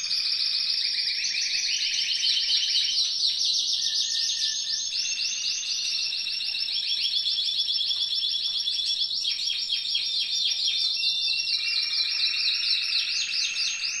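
Several Spanish Timbrado canaries singing at once in long runs of fast rolled trills. A higher and a lower trill overlap, and each switches to a new phrase every second or two.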